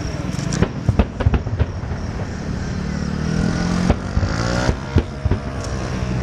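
Fireworks bursting in a string of sharp bangs over a steady low background rumble, with a rising whistle about four seconds in.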